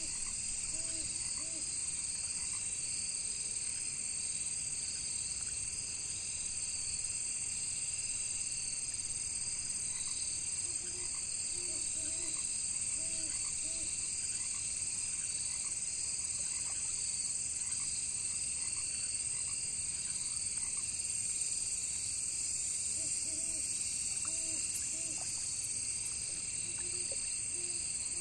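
Crickets trilling steadily in a high chorus, with frogs croaking in short runs of three or four low calls a few times: near the start, about eleven seconds in, and again past twenty seconds.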